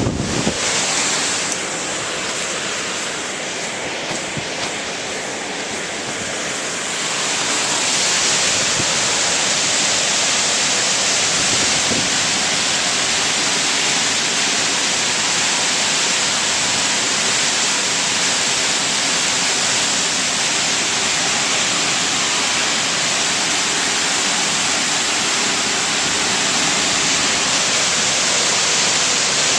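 Heavy, wind-driven rain pouring down in a severe storm, a steady rushing hiss that grows a little louder about eight seconds in.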